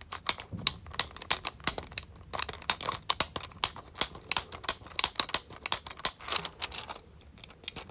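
Loud and quiet push buttons on a 3D-printed plastic 12-in-1 fidget clicked over and over, about four clicks a second, some clicks stronger than others; the clicking stops about a second before the end.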